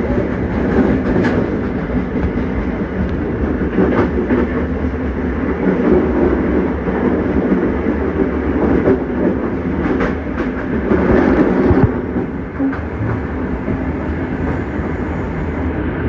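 LIRR M7 electric multiple-unit railcars running, a steady rumble and hum with a few sharp clicks from the wheels on the track.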